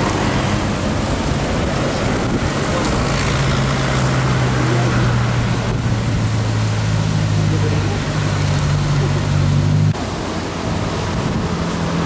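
Passing road traffic on a winding road, buses, a car and motorbikes, with a steady low engine hum. The hum cuts off abruptly about ten seconds in. Wind rushes on the microphone throughout.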